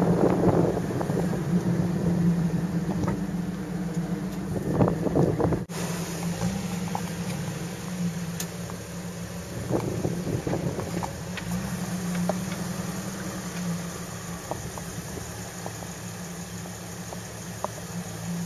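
Jeep engine running steadily on a slickrock off-road trail, with wind buffeting the microphone over the first few seconds. After a sudden cut, the engine continues at an even pitch with a few faint clicks.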